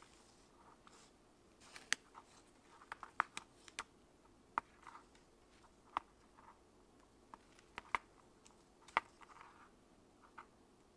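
Leather being hand-stitched: a needle and thread pulled through the stitching holes of a small leather pouch, giving a string of irregular sharp ticks with soft rustles of thread in between.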